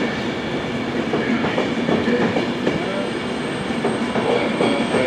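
Train running along the track: a steady rumble with a hum, broken by many short clicks and knocks of the wheels over the rails.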